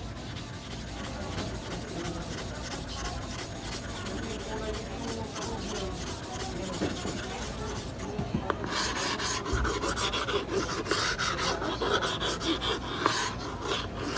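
A small stone block rubbed back and forth over the wet face of a Japanese natural sharpening stone (awasedo), a continuous gritty scraping that turns louder and rougher about two-thirds of the way through.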